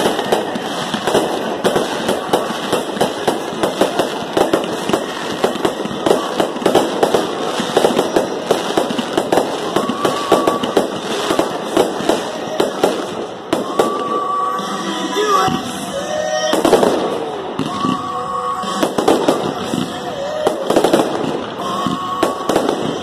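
Aerial fireworks shells bursting and crackling in rapid, continuous succession.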